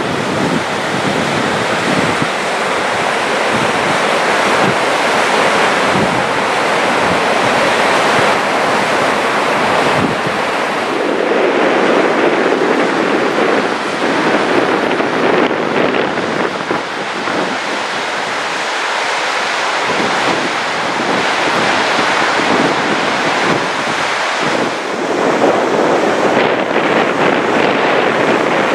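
Gullfoss waterfall, a steady loud rushing roar of falling water, with wind buffeting the microphone in irregular gusts.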